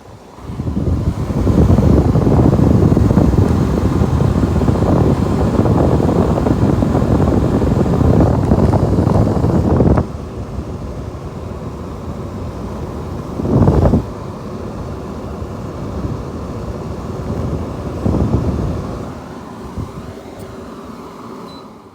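Air conditioner running, a loud rush of air from its fan, heaviest in the low end. It drops sharply to a lower level about halfway through, surges briefly twice, and fades near the end.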